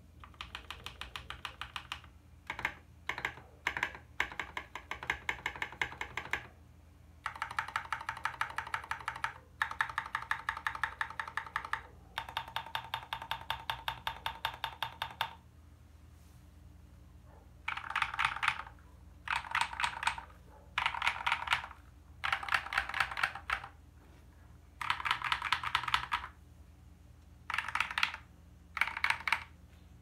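Stock MK870 mechanical keyboard with lubed Gateron KS3 Burgundy switches and SA-profile keycaps being typed on. For about fifteen seconds it gives fast, even runs of keystrokes. After a short pause come a series of roughly one-second bursts of keys mashed together.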